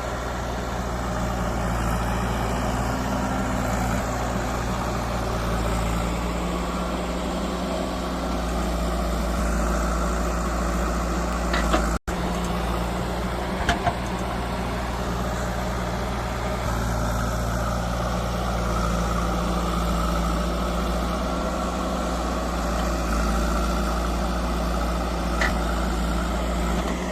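Diesel engine of a JCB 3DX backhoe loader running steadily under work, its engine note shifting to a new speed a couple of times, with a few short clicks and knocks.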